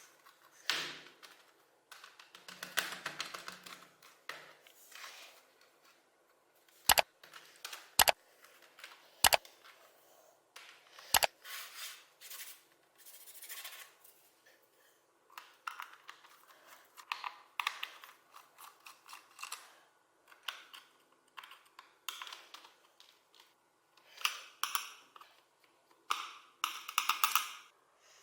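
Hands working on a mechanical keyboard: plastic clicks, scrapes and rattles, with four loud sharp snaps about a second apart partway through and a denser clatter near the end.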